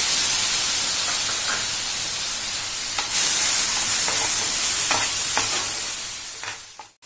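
Freshly added chopped tomatoes and onions sizzling in hot oil in a non-stick frying pan, stirred with a steel spoon that clicks faintly against the pan. The sizzle swells about three seconds in and fades away near the end.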